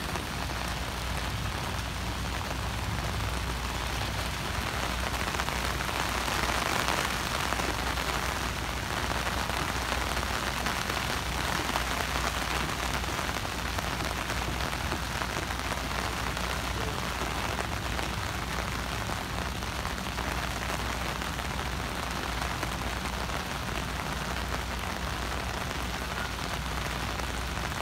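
Pouring rain falling steadily on umbrellas and the ground, an even hiss that swells slightly about six to eight seconds in.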